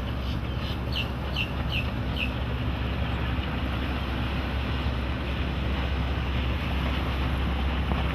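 Twin MerCruiser 5.0L V8 inboard engines of a cabin cruiser running at speed, heard from shore as a steady low drone mixed with wind and water wash. A bird gives several short falling chirps in the first two seconds.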